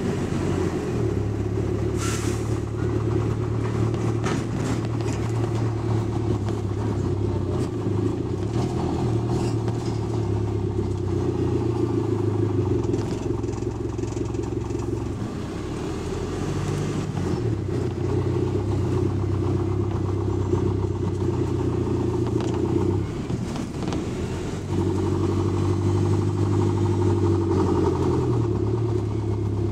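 Bus engine and drivetrain heard from inside the passenger saloon while the bus is under way, the engine note stepping up and down several times as it speeds up and changes gear. A brief sharp rattle about two seconds in.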